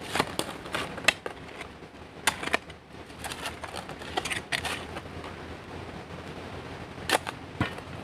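Irregular sharp knocks and clicks of hard objects, a dozen or so in the first five seconds, then two more near the end.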